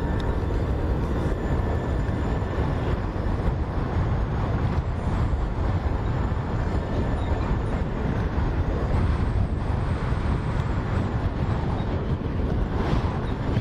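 Steady rumble of a moving road vehicle, engine and road noise heavy in the low end.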